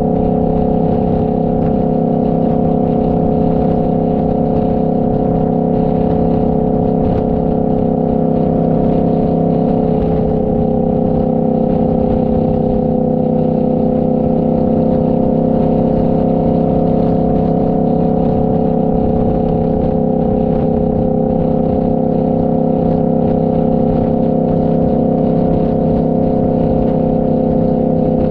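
Motorcycle engine running at a steady cruising speed, with a low rushing rumble underneath. The engine note dips slightly about ten seconds in, then holds steady.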